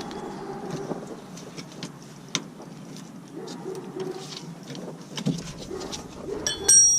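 Hand tools clicking and tapping against a car's rear brake hardware, with one sharp tick and a loud metallic clank that rings briefly near the end.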